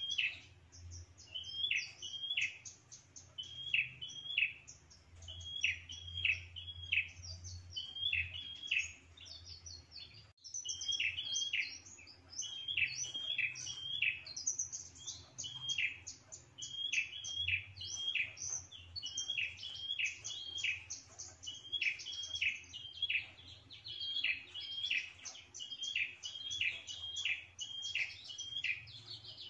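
Prenjak (prinia) singing a rapid, repeated chirping song: short sharp notes in clusters of two or three, over and over, with a faster twitter above them. It is a territorial song of the kind used as a lure call to draw in rival prenjak.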